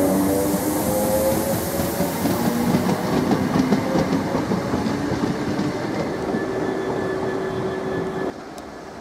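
Electric multiple-unit passenger train running past: a loud steady rumble of wheels and motors with a whine at first, a run of clicks as wheels cross rail joints in the middle, and a steady tone later on. The sound drops suddenly about eight seconds in to a much quieter background.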